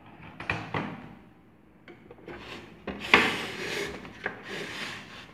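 Plastic case of a TS Shara Micro TS voltage stabilizer being handled and turned around on a tabletop: a couple of sharp knocks, then stretches of plastic scraping and rubbing with a few more knocks, the loudest about three seconds in.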